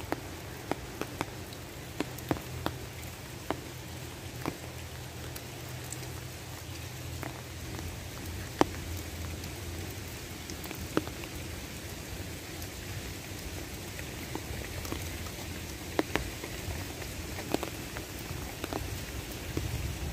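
Steady rain falling, with large drops ticking sharply and irregularly close by, and a steady low rumble underneath.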